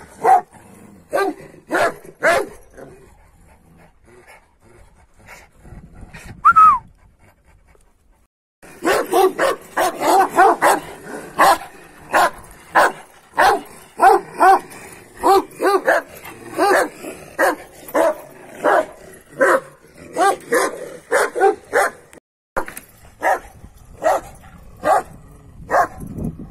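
Large shepherd dogs barking repeatedly. There are a few barks at first and a short falling whine about six seconds in. Then comes a long steady run of barks, one or two a second.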